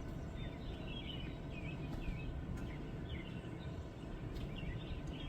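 Small birds chirping in quick, repeated short calls over a steady low background rumble.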